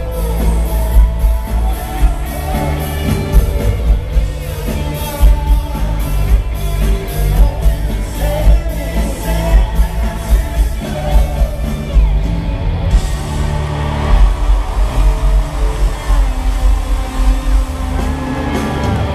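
Live pop-rock band with drums, bass and electric guitars playing behind a male lead singer, heard from the audience in a large venue. The regular cymbal strokes drop out about twelve seconds in.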